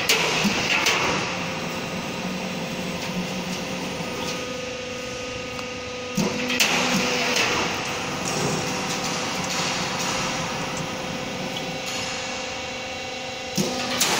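Z purlin roll forming machine running: a steady mechanical hum with several steady tones, broken by a few sharp metallic knocks, one about six seconds in and another near the end.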